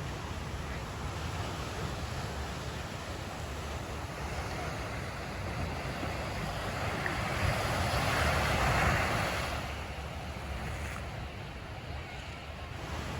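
Ocean surf washing onto the beach, with one wave swelling up and breaking loudest a little past the middle before it fades. Wind buffets the microphone with a low rumble throughout.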